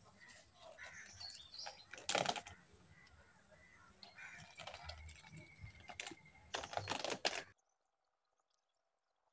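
Lead cast-net sinkers clicking and knocking together as they are handled and threaded onto nylon cord. There are louder clatters about two seconds in and again around seven seconds, and then the sound cuts off abruptly.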